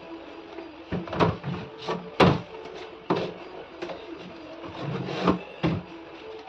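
Plastic storage containers and fridge drawers being handled, knocking and clattering about eight times at irregular intervals over a faint steady hum.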